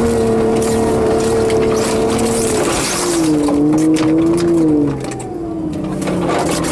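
Snowmobile engine running at a steady pitch, then dropping to a lower, wavering pitch about halfway through. Near the end it eases off and gets quieter. Faint scattered ticks sit over the engine.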